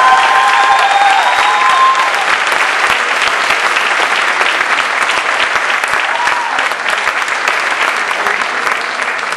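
Audience applauding after a spoken-word poem, with a few voices cheering over the clapping in the first two seconds. The applause then slowly fades.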